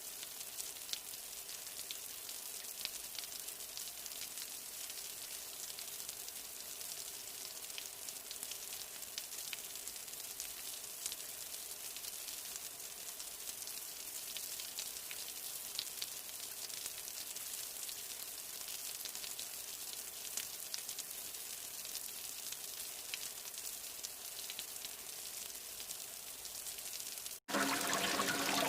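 Steady rain: an even hiss of falling rain with fine, scattered patter of drops. About 27 seconds in it cuts out for an instant and gives way to a louder rush of running water.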